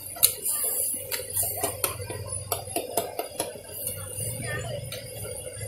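Metal spatula clanking and scraping against a wok as noodles are stir-fried, with frequent sharp clinks at an uneven pace.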